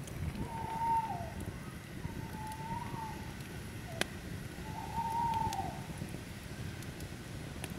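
A bird calls three times, each a long, level note of about a second that drops in pitch at the end. Behind the calls a wood campfire crackles with scattered sharp pops, one loud about four seconds in.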